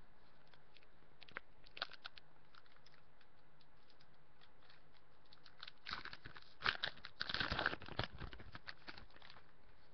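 A trading card booster pack wrapper being torn open and crinkled: a couple of faint clicks first, then a burst of crackling and tearing about six seconds in that lasts a couple of seconds.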